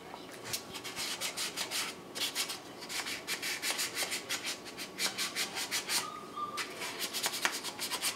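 Hand sanding of a wooden hand router plane's body with a small piece of sandpaper: rapid short back-and-forth strokes with a dry rasping hiss, about three to four a second, with a brief pause about six seconds in.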